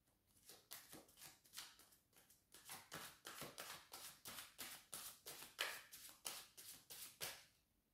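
Tarot deck being shuffled by hand: soft, quick slaps of cards falling against each other, about three or four a second, with a brief pause a little over two seconds in.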